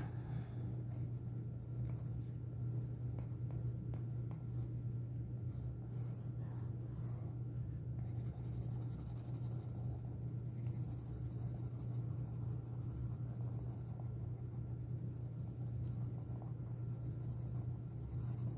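Derwent Graphitint tinted-graphite pencil shading back and forth on paper: a soft, continuous scratching. A steady low hum runs under it.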